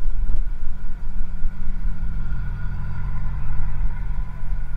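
Steady low rumble of a bicycle rolling along a paved towpath, picked up through the camera riding on the bike, with a faint steady high whine over it.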